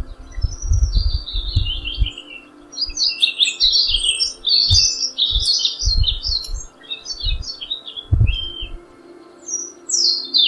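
Small songbirds chirping and twittering in quick overlapping calls, busiest in the middle and thinning out before a last burst near the end. Intermittent low rumbles sit underneath.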